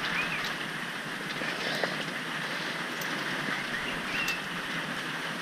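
Steady heavy rain falling on and around a carport, an even hiss of rain with a couple of faint clicks.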